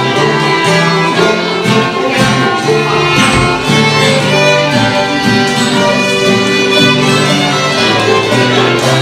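Old-time string band playing a waltz: two fiddles carry the melody over banjo and guitar accompaniment.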